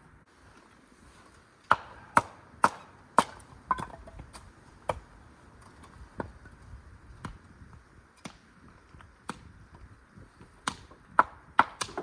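A series of sharp knocks and clacks at irregular intervals: several in quick succession a couple of seconds in, sparser through the middle, and a quicker cluster again near the end.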